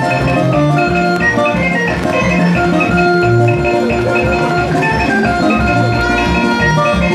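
Music with a beat: held melody notes that change step by step over a bass line and a regular pulse.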